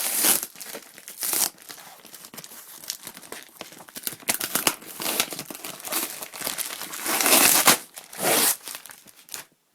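Packaging being handled and opened: irregular crinkling and tearing rustles, loudest in a long stretch near the end.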